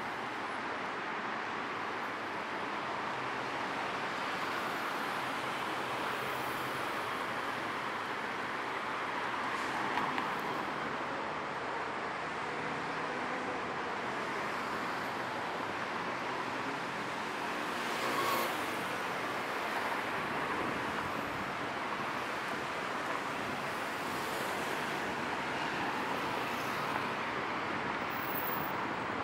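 Steady road traffic noise from passing cars and motorbikes, with vehicles swelling louder about ten seconds in and again around eighteen seconds.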